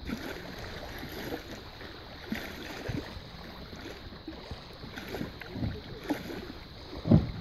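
Small waves lapping at the water's edge, with wind buffeting the microphone in irregular low bumps and one louder bump near the end.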